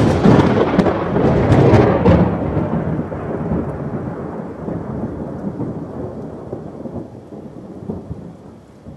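Thunderclap: a sudden sharp crackling crack, then a long rolling rumble that slowly dies away.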